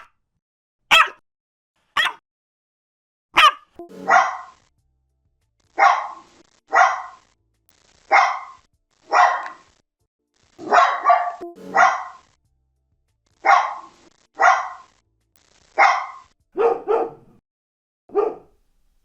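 Dogs barking, about one bark a second. The first few seconds are short, sharp single barks. From about four seconds in, a different dog barks, mostly single barks with a few quick double barks.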